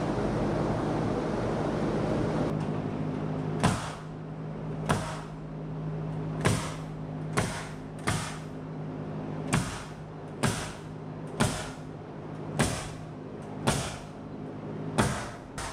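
Pneumatic framing nailer firing nails into rafters, about a dozen sharp shots roughly one a second, starting nearly four seconds in, over a steady low hum.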